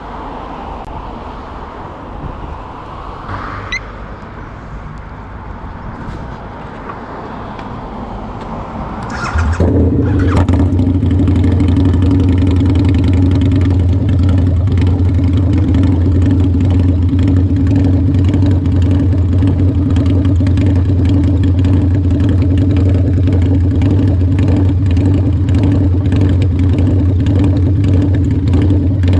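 Harley-Davidson V-Rod's V-twin engine starting with a sudden loud burst about nine seconds in, then running at a steady, loud idle. Before that, lower steady background noise.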